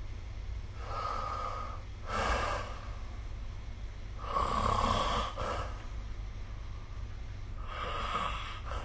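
A person snoring in their sleep, with noisy snores about a second long coming every few seconds, the loudest around the middle, over a steady low hum.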